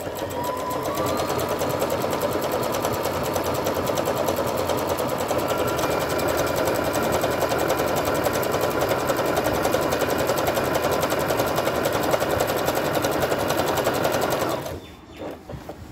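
Brother LX27NT electric household sewing machine running steadily, stitching a decorative stitch pattern with a rapid, even rhythm of needle strokes. It stops abruptly near the end.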